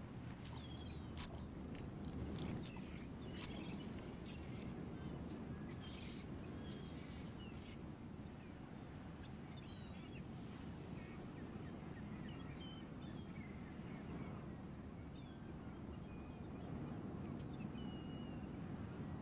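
Outdoor ambience: a steady low rumble with scattered small bird chirps. There are a few sharp clicks in the first several seconds.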